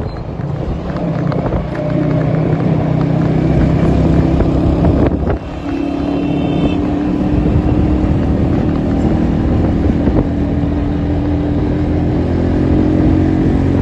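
A motor vehicle's engine running while travelling, its pitch shifting as it goes, with a brief dip in level about five seconds in and a short high-pitched tone just after.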